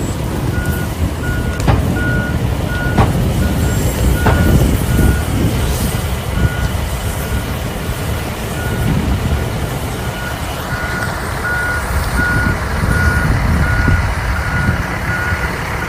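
A heavy vehicle's reversing alarm beeps steadily, about once every three-quarters of a second, over a low engine rumble. The beeps grow louder about two-thirds of the way through as the vehicle backs up.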